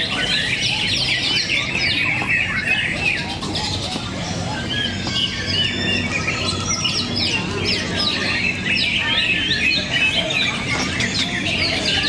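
Several caged cucak ijo (greater green leafbirds) singing at once in contest, a dense, overlapping stream of quick chirps and whistled phrases.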